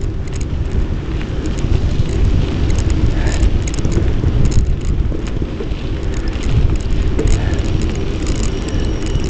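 Riding noise picked up by a bike-mounted Polaroid Cube camera: a steady, loud wind rumble on the microphone with frequent small rattles and clicks from the bicycle and camera mount jolting over the path.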